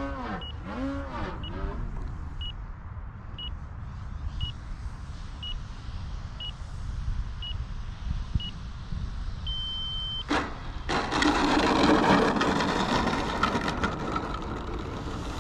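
Electric RC plane's brushless motor and propeller whining, the pitch dipping and swelling briefly as the throttle is worked. A radio transmitter's timer beeps about once a second, ending in a longer beep, then a sharp knock about ten seconds in and several seconds of loud rough rushing noise as the plane touches down and rolls on rough asphalt.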